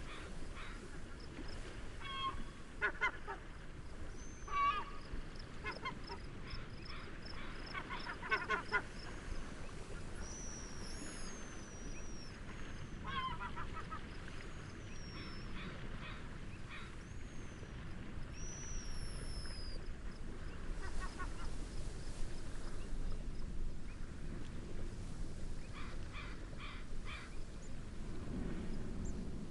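Wind and gentle waves make a steady bed, over which waterbirds give repeated honking calls in several short bouts. Small birds add high, thin chirps through the middle of the stretch.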